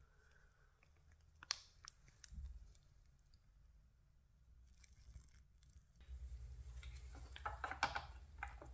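Faint clicks and light scrapes of small parts being handled and test-fitted by hand. A low hum comes in about six seconds in, with a quick run of clicks near the end.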